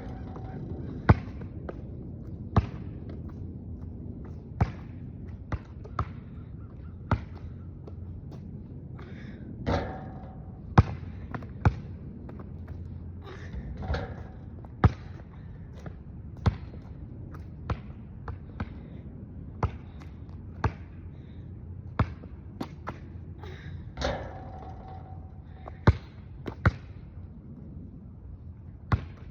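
Basketball dribbled on a hard floor: sharp single bounces at an uneven pace, roughly one every one to two seconds, over a steady low background hum.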